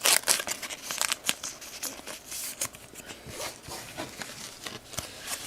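Foil trading-card pack wrapper crinkling and being torn open, with cards rustling: a quick, uneven run of crisp crackles, sharpest at the start.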